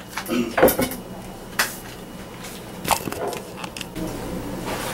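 Dishes handled on a kitchen counter: a few sharp knocks and clinks, about a second apart.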